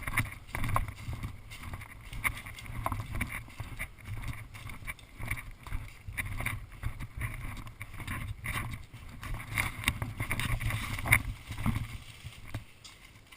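Low rumble of wind and handling noise on the camera microphone, with many irregular sharp clicks and snaps scattered through it.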